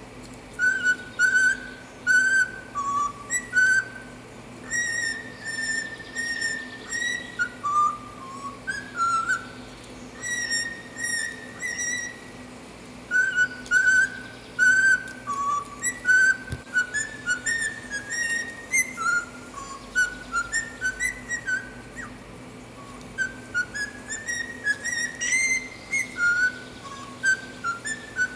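Cockatiel whistling a tune: short clear notes that step up and down in pitch, grouped into phrases with brief pauses between them.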